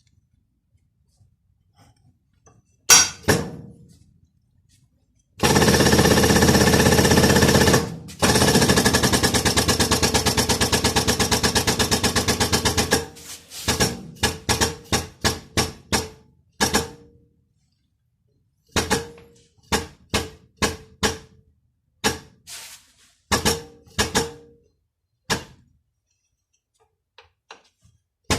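A pneumatic tool hammering metal in a rapid continuous burst for about seven seconds, then a string of single sharp, ringing hammer blows on steel. This is the work of driving new silent-block bushings into a Range Rover L405 front control arm.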